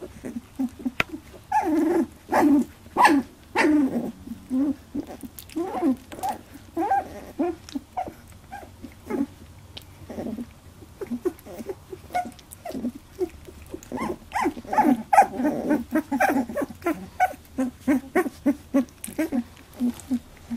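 18-day-old Labradoodle puppies making many short, rapid calls as they tussle and mouth at each other.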